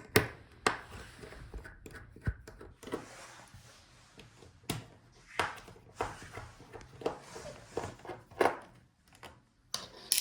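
Light clicks, taps and scraping of small tools and plastic and metal laptop parts being handled during disassembly, with irregular sharp knocks scattered throughout.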